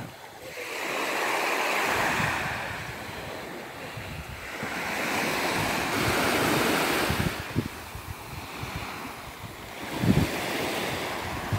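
Small waves washing up onto a sandy, shelly shore and drawing back, the hiss of the surf swelling and fading twice. Wind buffets the microphone, most strongly about ten seconds in.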